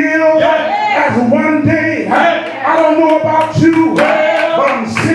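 A man singing into a microphone in long held notes, one sung line after another.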